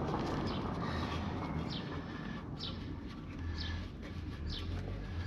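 A small bird chirping repeatedly, short high falling notes about once a second, over rustling handling noise and a low hum.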